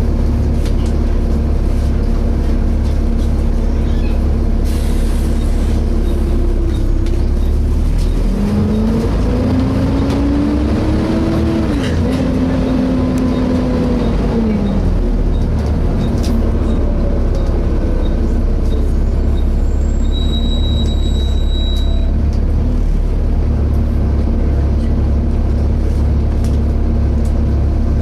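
Volvo B7TL bus's straight-six diesel engine running, heard from on board. About eight seconds in, a howling whine rises in pitch, drops back suddenly, then falls away over several seconds. The uploader hears this weird howling noise at times and does not know where it comes from.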